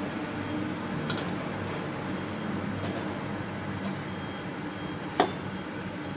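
Broth simmering in a steel wok over a stove, with a steady low rumble under it. A metal spatula stirs and knocks sharply once against the wok about five seconds in, after a lighter click about a second in.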